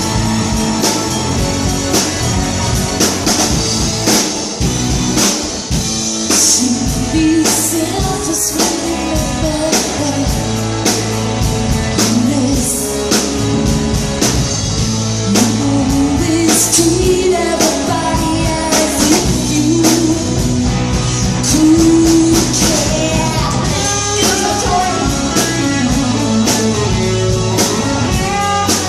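Rock song playing: electric guitar and drum kit keep a steady beat under a winding melodic line.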